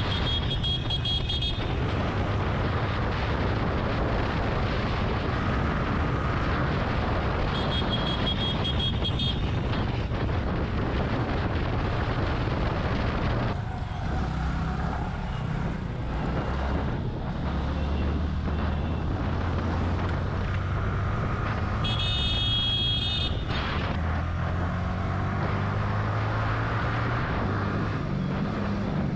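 Motorcycle riding through city traffic: its engine runs under a steady rush of riding noise, its pitch shifting as the rider changes speed. A vehicle horn honks three times, once near the start, once about eight seconds in and once about twenty-two seconds in.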